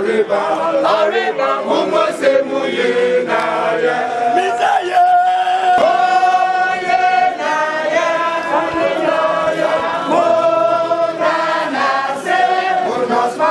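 A group of voices singing and chanting together, several long notes held in the middle, with shorter chanted phrases before and after.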